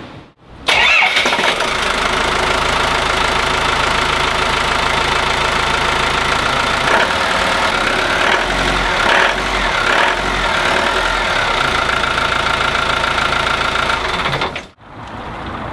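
Volvo Penta KAD32 supercharged marine diesel starting up and running at idle in its open engine bay. It starts abruptly about a second in, runs steadily with a shift in its note for a few seconds around the middle, and stops abruptly near the end.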